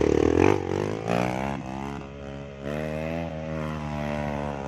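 A motor running with a droning hum that rises in pitch about a second in, then holds steady.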